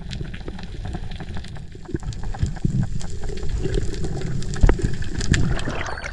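Underwater sound picked up by a dive camera: a muffled, steady water rush with many small clicks and crackles throughout.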